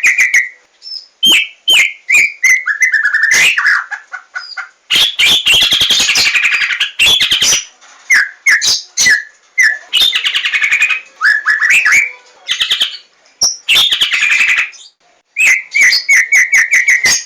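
White-rumped shama (murai batu) singing: phrases of rapid repeated whistled notes alternate with dense, varied warbling stretches, broken by short pauses.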